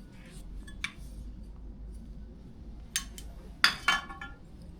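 Metal parts of a keypad door lock clinking and clicking as they are handled and set down: a few light clicks, then a louder pair of clinks with a short ring near the end.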